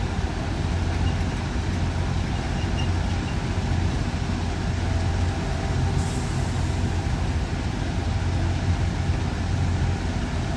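Heavy diesel construction machinery running steadily with a low, even drone, and a brief hiss about six seconds in.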